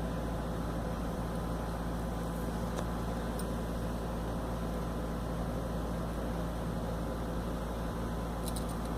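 Steady low mechanical hum of a running motor, unchanging throughout, with a few faint ticks.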